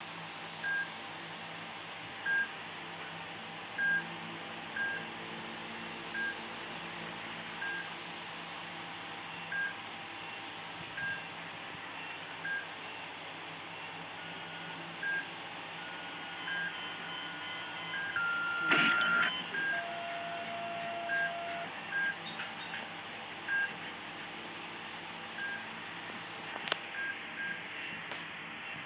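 Medical patient monitor beeping, one short high beep about every second and a half, with other steady alarm tones sounding for several seconds in the middle and a brief louder noise about two-thirds of the way through.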